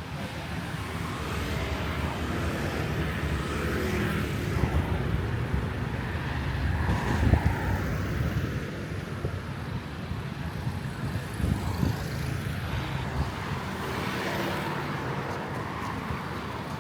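Street traffic: motor vehicles passing on a city road, a steady low rumble with a brief louder pass about seven seconds in.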